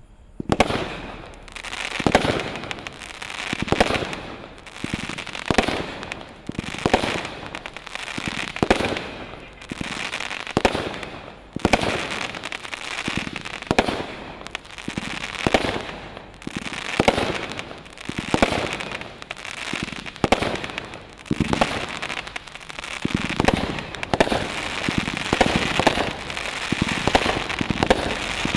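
A 500 g, 37-shot consumer firework cake (Acid Rain) firing its shots one after another, about one every second and a half. Each shot is a sharp lift-off pop followed by a burst in the air, and the shots run together into a denser, steadier din near the end.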